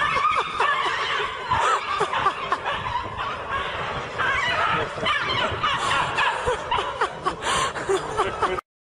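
People laughing, a dense stretch of laughter that cuts off abruptly near the end.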